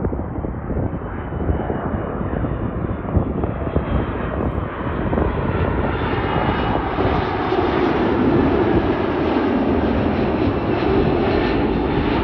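Jet airliner engines growing louder as the plane approaches, the noise brightening over the first half and then holding loud.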